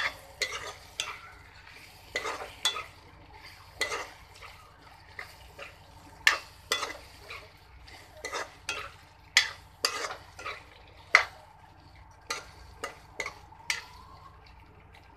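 Metal spatula scraping and knocking against a metal kadai as pork pieces in spiced oil are stirred, about one or two strokes a second, over a light frying sizzle. The strokes stop shortly before the end.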